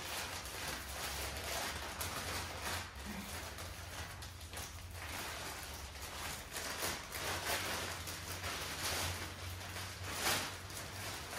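Plastic poly mailer bag rustling and crinkling as it is pulled and torn open by hand, with irregular crackles throughout.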